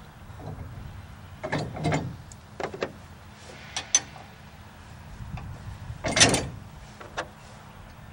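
Steel carrier shaft being worked into a truck's 2-inch hitch receiver: a series of short metal scrapes and clunks, the loudest about six seconds in.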